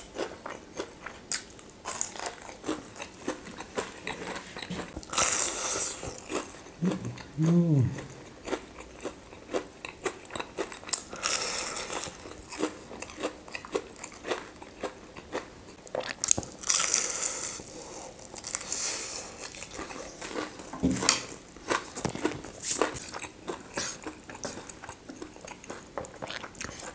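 A person biting into and chewing a fried, crumb-coated cheese corndog close to the microphone: repeated crunchy bites and chewing, with a brief hum about seven seconds in.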